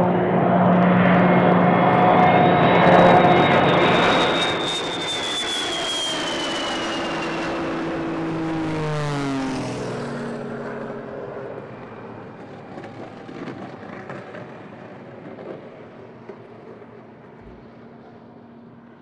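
Jet aircraft flying low past the runway: a loud engine whine and rumble that swells, then drops sharply in pitch about eight to ten seconds in as it passes, and fades away.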